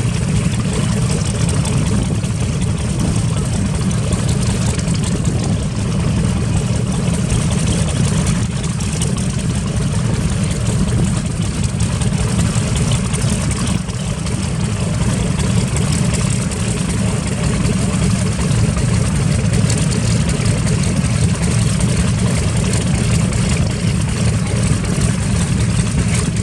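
Wright R-2600 radial piston engines of a World War II warbird running steadily at idle: a continuous low rumble with no change in speed.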